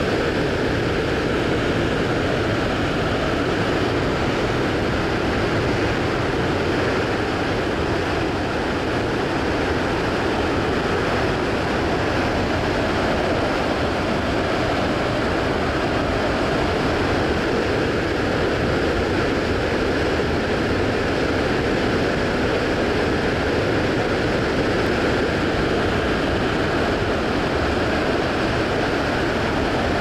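Victoria Falls pouring into its gorge: a loud, steady rush of falling water that does not change.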